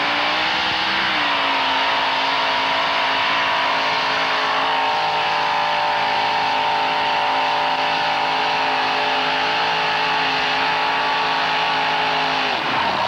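Supercharged engine of a modified pulling truck at full throttle, hauling a weight-transfer sled. The engine note climbs in the first second, holds steady and high, then drops away sharply near the end.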